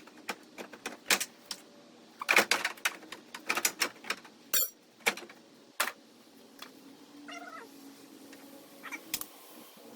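Irregular sharp knocks and clicks, densest in the first half, followed by a few short wavering cries.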